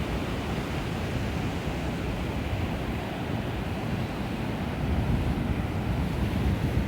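Ocean surf breaking and washing on a beach, with wind buffeting the microphone; the roar grows a little louder about five seconds in.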